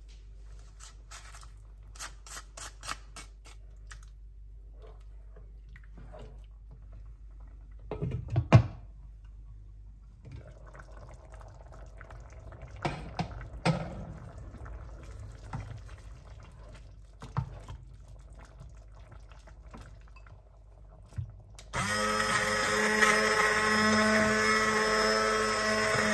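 Small clicks and a loud knock of kitchen utensils against the saucepan, then about 22 s in a handheld immersion blender switches on and runs steadily, blending lentil soup in the pan.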